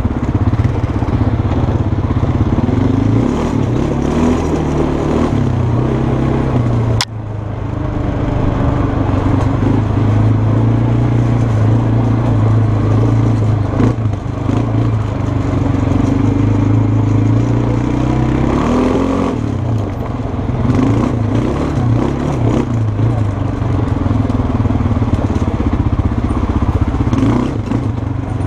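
Kymco 300 quad's engine running on a rough trail, its note rising and falling with the throttle, over rattling of the machine. A sharp click about seven seconds in, with a brief dip in the sound.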